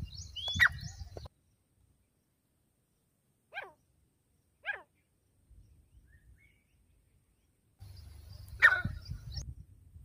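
Grey francolin calls: a loud harsh call about half a second in, two short downward-sliding notes around the middle, and another loud call near the end. A low rumble sits under the first and last calls.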